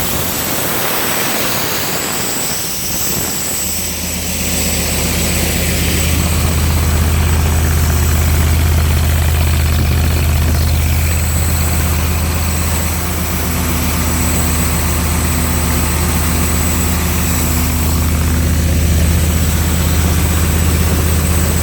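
Engine of a '302' air compressor running steadily, a deep even hum that settles in strongly about four seconds in after a stretch of broad hiss. It is running smoothly with its newly fitted alternator and belt.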